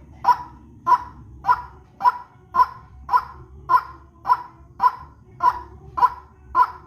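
White-breasted waterhen (ruak-ruak) calling: a short harsh croaking note repeated evenly, nearly twice a second, as a bird-lure recording.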